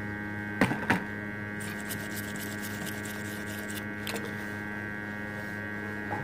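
Steady electrical mains hum with many overtones, broken by two light knocks just under a second in and a faint tick or two later.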